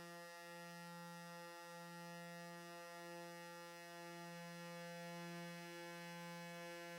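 Electronic music: a sustained synthesizer drone on one low pitch with a stack of steady overtones, its bottom note swelling and dipping gently every second or so.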